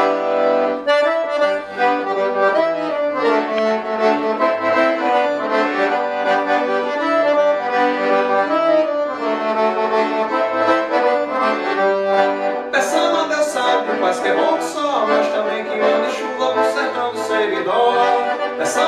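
Leticce piano accordion playing a melody over sustained chords, the instrumental opening of a forró-style song. From about two-thirds of the way in, the playing turns brighter, with crisp repeated accents.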